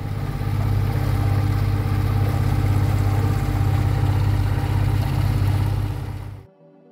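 A boat engine running steadily under way, a loud low drone that cuts off abruptly about six and a half seconds in.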